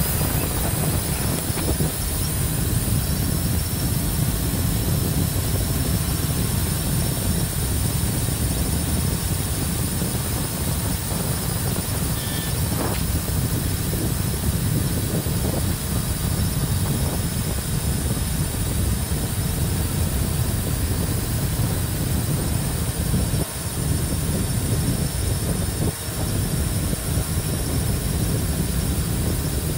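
Wind buffeting a camera's microphone held out of a car moving at highway speed: a steady, loud low rumble with road noise underneath.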